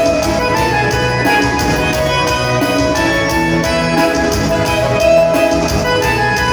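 Loud instrumental band music with a steady, even beat, about two beats a second.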